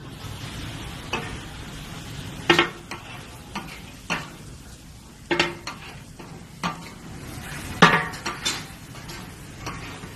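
Oil sizzling on a large flat metal griddle while a metal spatula scrapes and clanks against it, giving about a dozen sharp, irregular clinks over a steady hiss.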